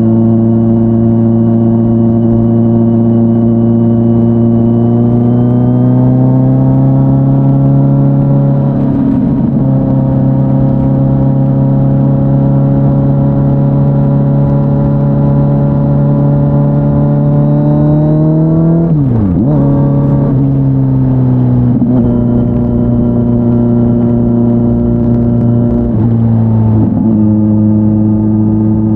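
Kawasaki Z900's inline-four through an SC-Project S1 exhaust, heard from the rider's seat at a steady part throttle. The revs climb slowly for several seconds, then drop sharply about two-thirds of the way through at a gear change and settle lower. Two brief dips come later.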